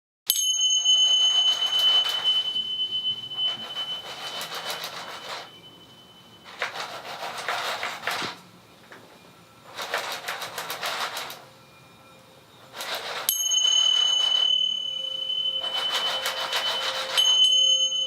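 Sound-design collage of dense clattering, rattling noise that starts and stops abruptly in blocks a second or two long, with a high, steady ringing tone over it at the start and again from about two-thirds of the way through.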